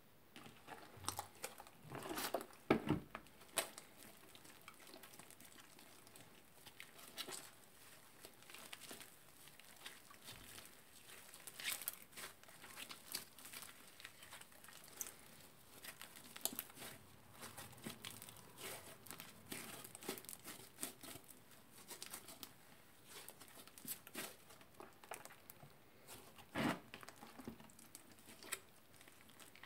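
Old, dried-out purple slime being kneaded, squeezed and pulled apart by hand in a bowl of water, shaving cream and liquid soap: a stream of irregular small sticky crackles and pops, loudest about two to three seconds in and again near the end.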